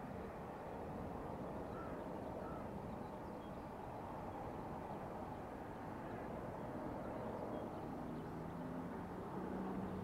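Steady low outdoor background rumble, with two faint short bird calls about two seconds in and a faint low hum coming in near the end.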